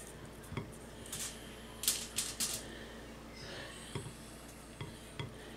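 Faint, scattered light clicks and taps of a paintbrush dabbing black paint onto a polymer clay figure resting on a ceramic plate, over a low steady hum.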